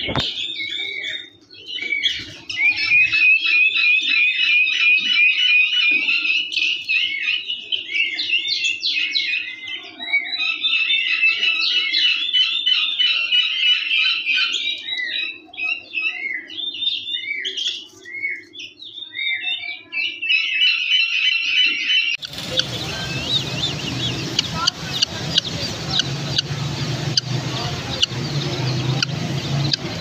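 A crowd of young chicks peeping all at once, a dense high chatter of overlapping calls. About three quarters of the way through it cuts off suddenly to a steady low hum and background noise with faint scattered chirps.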